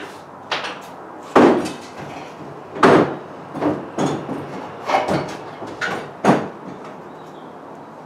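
A steel motorcycle swing arm being handled and set down on a wooden workbench: a run of about eight separate knocks and clunks, the loudest about a second and a half in and again at three seconds.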